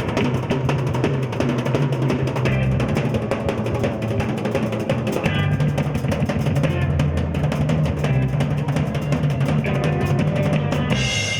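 Live band playing, a drum kit keeping a steady beat with guitar over a held bass line.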